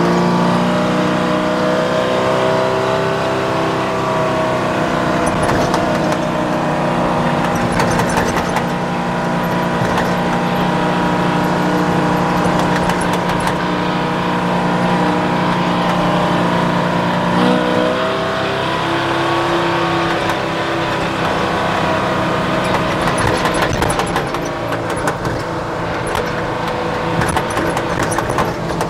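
A Detroit Diesel two-stroke diesel engine running under load in the cab of a White 4000 truck as it drives slowly. The engine note is steady, then changes pitch a little over halfway through.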